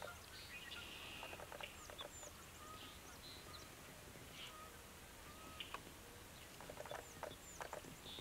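Faint birdsong from several birds: scattered chirps and short whistles, with runs of rapid chattering calls about a second in and again near the end.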